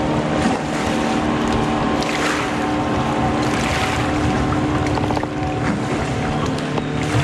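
Fishing kayak's drive running with a steady hum that holds one pitch throughout, over wind noise on the microphone and water.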